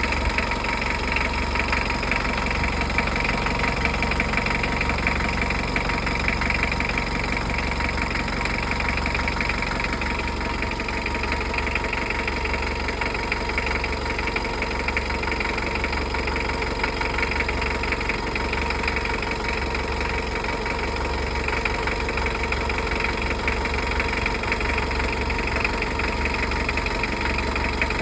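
Mitsubishi L300's diesel engine idling steadily.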